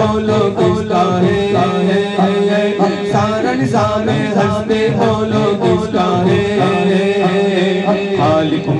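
Group of men singing a devotional Islamic chant into microphones, in short repeated phrases over a steady held low tone.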